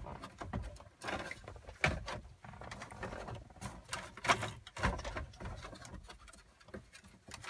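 Wiring harness, plugs and cables rustling and knocking as they are pushed back into the dash cavity behind a car stereo head unit, with the unit's metal chassis shifting in its opening. Irregular clicks and knocks, the sharpest about 2 seconds in and twice more a little past the middle.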